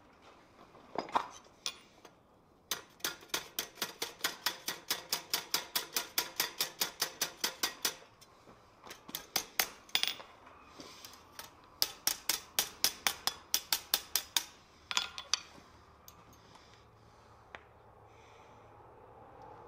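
Small hand hammer striking iron scrollwork on an anvil in quick, light blows, about five a second, each with a bright metallic ring. The hammering comes in runs of a few seconds with short pauses between them.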